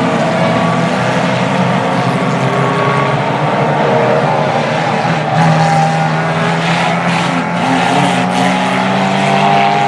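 Several Reliant Robin three-wheeler banger racers running together, their small engines making a steady, layered drone with pitches shifting slightly. A few short knocks come in the second half.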